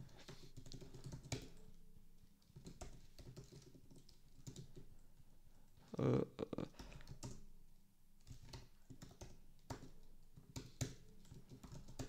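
Typing on a computer keyboard: irregular runs of key clicks, with a brief louder sound about six seconds in.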